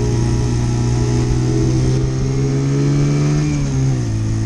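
Mutt Mongrel motorcycle's single-cylinder engine running at road speed while riding, its note holding steady and climbing a little, then dropping away near the end as the throttle is rolled off.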